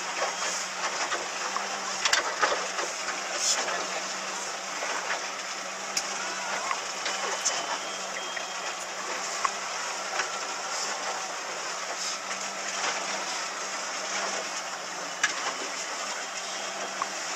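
Small training motorboat's engine running steadily at low speed, with water rushing and splashing against the hull and occasional knocks as it meets the waves.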